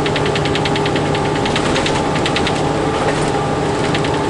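Rapid rattle from the back of a Freightliner semi truck's cab while driving, about ten rattles a second, coming in bursts with a short break around the middle, over the steady drone of the truck's engine. It is a rattle whose cause the driver has not found.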